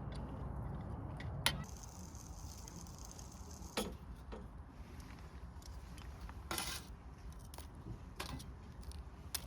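A few separate light clicks and clinks of small hard objects, four of them a couple of seconds apart, over a low steady background rumble.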